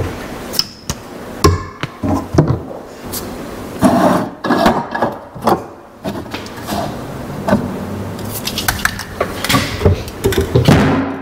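Aerosol spray paint cans knocking and clinking against one another and the shelf as they are rummaged through in a cabinet, a string of irregular knocks and clatters. A cabinet door opens at the start.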